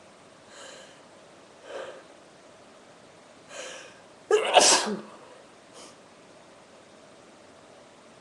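A woman sneezing: three short, quieter breaths over the first few seconds build up to one loud sneeze a little past the middle.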